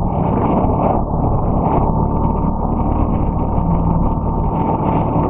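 Four-wheel-drive ATV engine running steadily while being ridden, its pitch shifting a little with the throttle.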